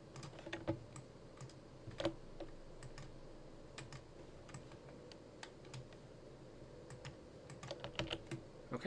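Irregular, scattered clicks of a computer keyboard and mouse, with short flurries of clicks at the start, about two seconds in, and again near the end.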